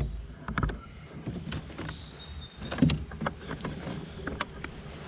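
Irregular clicks, taps and knocks of gear being handled in a fishing kayak, with a louder knock about three seconds in.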